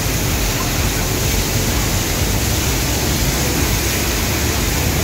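Steady, loud roar of a large waterfall heard close up, the Pailón del Diablo on the Río Verde, with falling water crashing continuously.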